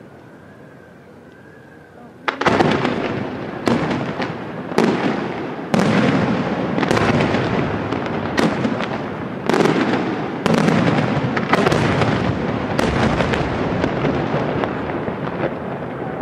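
Aerial firework shells bursting in quick succession. After a quieter first two seconds, sharp bangs come about once a second over a continuous crackle of the burning stars.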